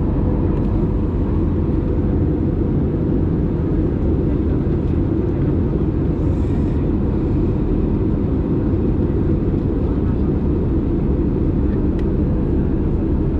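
Steady cabin noise of an easyJet Airbus A320-family jet in flight, heard from inside the cabin over the wing: the engine drone and rushing airflow, with a faint steady hum.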